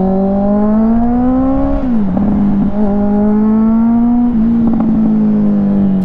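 Honda CBR650 inline-four motorcycle engine pulling under acceleration, its note rising steadily, then dropping sharply about two seconds in at an upshift and rising again. Near the end there is a brief dip and the note eases off.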